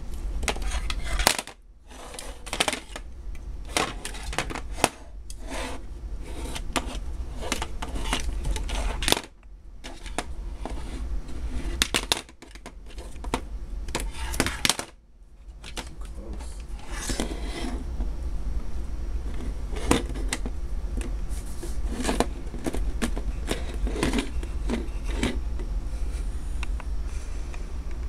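A cat-shaped pencil sharpener being batted and knocked about a desktop by a kitten: an irregular clatter of sharp taps and knocks as it hits and skids on the desk, over a steady low hum.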